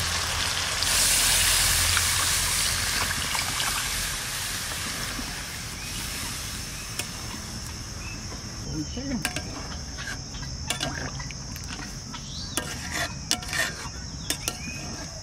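Mutton korma sizzling in a hot metal karahi: a loud hiss that dies down over the first few seconds as the pan fills with gravy. Later a spoon stirs, scraping and clinking against the pan a number of times, with a steady high-pitched drone behind it.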